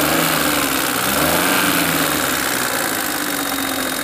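Maruti Suzuki Alto's three-cylinder engine idling on CNG, running smoothly with no misfire.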